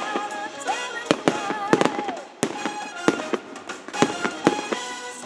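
Aerial fireworks shells bursting in a quick, irregular run of sharp bangs and crackles, with music playing underneath.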